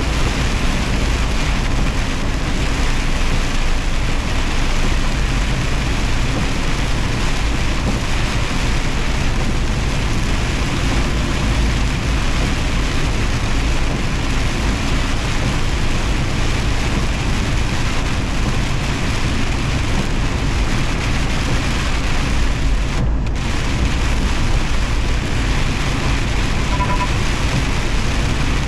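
Semi truck driving through heavy rain: a steady hiss of rain and road spray over the low rumble of the engine and tyres.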